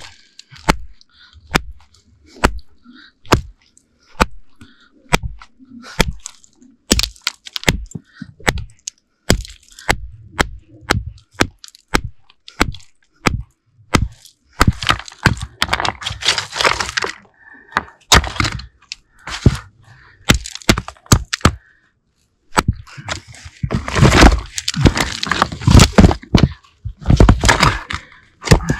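Hand hammer striking a large boulder of Zaria stone (rhodonite, garnet and jasper): repeated sharp cracks at about one or two a second, uneven in force, as a piece is chipped off the rock. In the middle and again near the end come stretches of crunching and scraping on loose rock.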